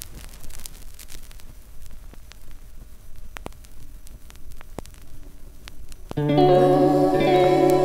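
Flexi disc record playing: a hiss of surface noise with scattered clicks and pops. About six seconds in, the song's intro starts loud, with guitar chords over a steady bass line.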